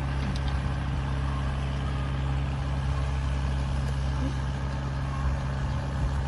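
Farm tractor's engine running steadily as it pulls a disc plough through the soil, a low even drone.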